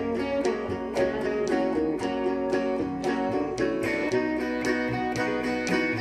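A small string band playing live: electric guitar, resonator guitar and upright bass in a steady, rhythmic passage of plucked and strummed notes.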